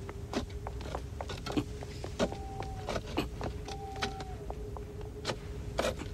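Scattered irregular clicks and snaps, like footsteps and brushing through garden shrubs, over a steady low held drone note. Two brief held higher notes sound near the middle.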